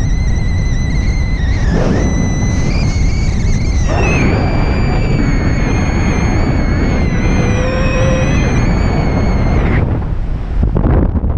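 Strong wind rushing over the microphone during paraglider flight. Over it a steady, thin, high whistle-like tone wavers a little in pitch and cuts off abruptly near the end.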